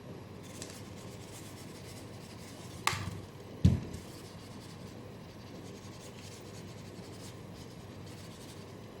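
Handling noise from a smartphone gimbal stabilizer: faint rubbing and scratching, a sharp click about three seconds in and a dull thump just after, the loudest sound.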